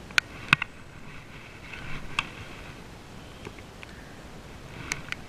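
Steady hiss of rain with a handful of sharp, brief clicks and taps, a cluster of three near the start, one around two seconds in and two near the end.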